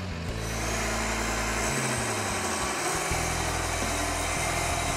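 Case IH MX305 tractor's diesel engine running steadily, with a thin high whine that climbs during the first second and then holds.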